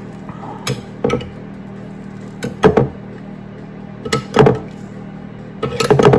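Clinks and clatters of cookware and metal utensils, in short clusters every second or two, over a steady low hum.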